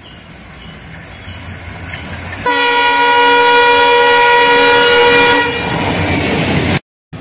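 Diesel locomotive approaching with its engine rumble steadily building, then sounding one long horn blast of about three seconds as it passes close by. The engine and wheel noise carries on after the horn and then cuts off suddenly near the end.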